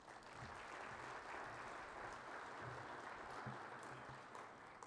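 Audience applauding in a large hall. The clapping starts at once, holds steady, and dies down near the end.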